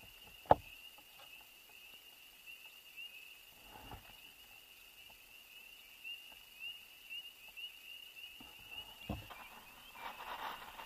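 A steady high-pitched chorus of frogs calling from the pond, made of many short rising peeps. A single sharp knock sounds about half a second in, with softer thumps around four and nine seconds, from the fish being handled in the kayak.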